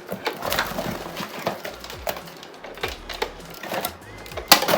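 Plastic Nerf blaster parts being handled and fitted together: irregular plastic clicks and knocks, with one sharp, loud click near the end.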